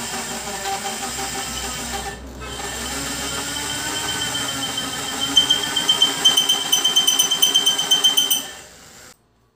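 Handheld electric rotary tool grinding the valve seat of an old Royal Enfield Bullet cylinder head, its motor pitch wavering with the pressure on the bit and dipping briefly about two seconds in. From about halfway it turns into a fast pulsing chatter with a high whine, then cuts off shortly before the end. The seat is being reshaped so the valve seals all round, curing a compression leak.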